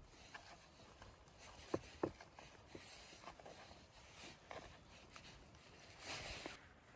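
Faint handling sounds of a long metal skewer being pushed through a raw rack of lamb ribs on a wooden board: small clicks, two clearer ones about two seconds in, and a short swell of soft noise near the end.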